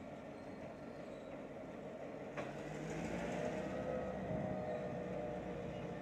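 EMD diesel locomotive working upgrade with a short passenger train, its engine note steady and growing louder after a sharp clank about two and a half seconds in, under the rumble of the cars rolling over the bridge.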